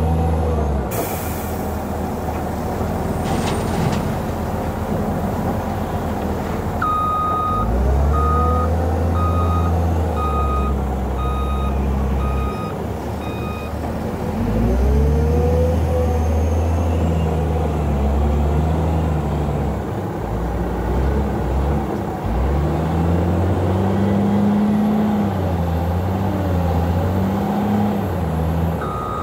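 Caterpillar 966H wheel loader's diesel engine revving up and down as it works, with a rush of noise about a second in as the bucket load drops onto the trailer. Its reversing alarm beeps about once a second while it backs away, and starts beeping again near the end.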